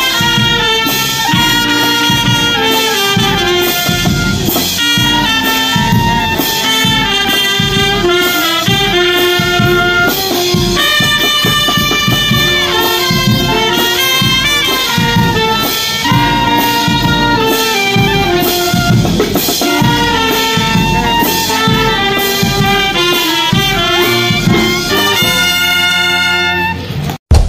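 Background instrumental music with a brass melody over a steady beat, cutting off suddenly at the very end.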